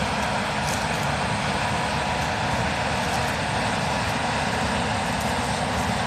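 Case IH combine running steadily while harvesting soybeans, an even machine drone with a few faint steady tones.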